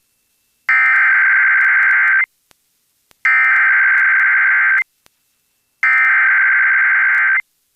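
Three Emergency Alert System SAME header bursts, digital data tones received over weather radio, each about a second and a half long with about a second's gap between them. They mark the start of an alert, here a severe thunderstorm watch.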